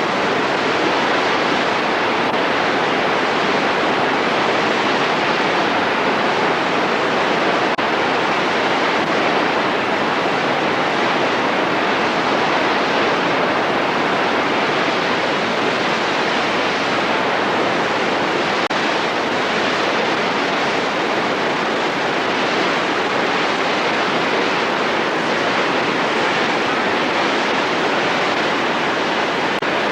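Steady rush of fast-flowing water, such as Mena Creek or its falls running high.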